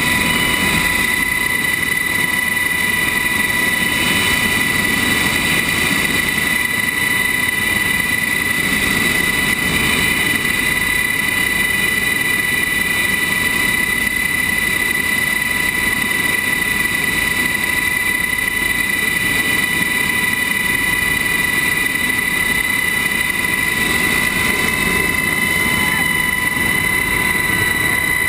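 Military helicopter running on the ground, its rotor blades turning over a steady high-pitched turbine whine, heard from inside the open cabin door.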